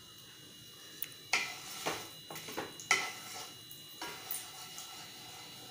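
Wooden spatula stirring whole spices in hot oil in a non-stick frying pan: a string of irregular light knocks and scrapes of wood against the pan.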